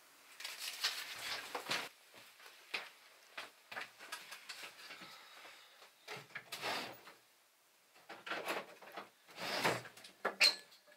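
Paper being handled: irregular rustling and scraping in short bursts, with light knocks and a brief sharp squeak near the end.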